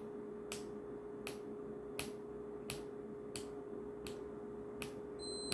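A person gulping down water in a run of swallows, each gulp a short soft click, one about every three quarters of a second, as a hiccup cure. A steady hum runs underneath, and a brief high beep sounds near the end.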